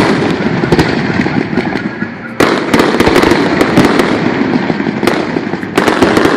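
Stadium fireworks display: a dense, continuous volley of bangs and crackles, with a fresh loud barrage breaking out about two and a half seconds in and another near the end.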